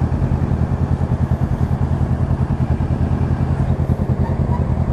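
Kawasaki naked motorcycle engine idling with a fast, even pulse.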